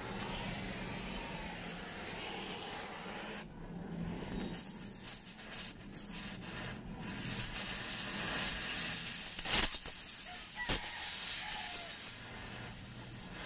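Gas cutting torch flame hissing steadily as it cuts through the rusted sheet metal of a van's lower body panel, with two sharp pops a little over a second apart about two-thirds of the way through.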